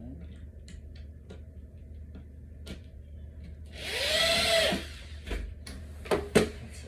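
A power drill runs briefly about four seconds in, its pitch rising and then falling as it spins up and winds down, driving a screw into the dresser's particleboard. Two sharp knocks follow near the end, with small clicks of handling before.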